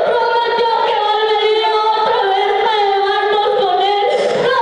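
Voices singing a slow melody in long held notes that glide gently up and down.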